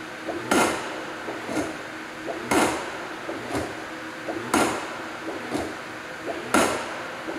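The zoom train of a Clay Paky Sharpy Wash 330 is cycled back and forth by its motor while it is being worked free of sticking. A loud knock with a short falling motor whine comes about every two seconds, with a softer knock about a second after each.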